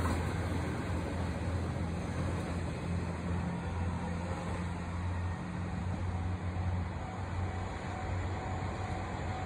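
Diesel express train pulling away into the distance, its engine and running noise fading, over a steady low hum.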